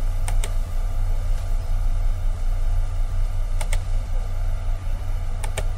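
Steady low hum from the recording setup, with a few faint clicks scattered through it.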